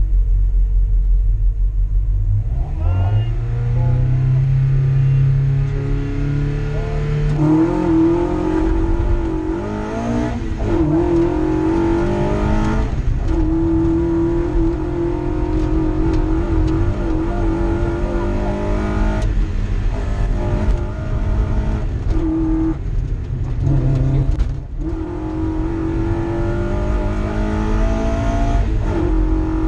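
Mazda MX-5 rally car's four-cylinder engine heard from inside the cabin: a low steady rumble, then about two and a half seconds in the car launches and accelerates hard, revs climbing and dropping back through repeated gear changes. A brief lift off the throttle about three-quarters of the way through.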